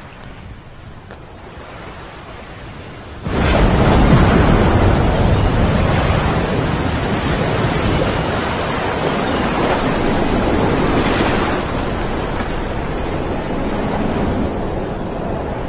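Nuclear blast wave sound effect: a faint hiss of wind, then about three seconds in a sudden loud rush of wind-driven noise that carries on without a break, easing slightly toward the end.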